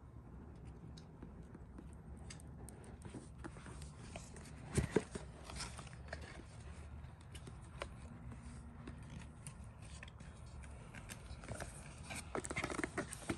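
Cardboard retail box being handled and opened: the sleeve and inner tray slide and scrape against each other with light ticks and taps, and a sharper knock about five seconds in.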